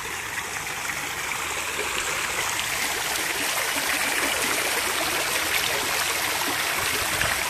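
Water from a tiered garden fountain falling from its rim and bowls into the basin, a steady splashing and trickling that grows a little louder over the first few seconds.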